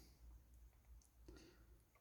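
Near silence, with a few faint light clicks about a second in from handling small electronic components such as resistors.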